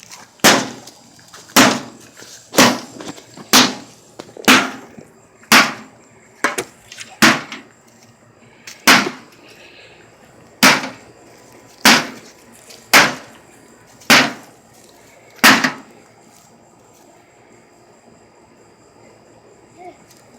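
A microwave oven being struck over and over with a hand tool: about fourteen hard blows, roughly one a second, then a pause of several seconds near the end.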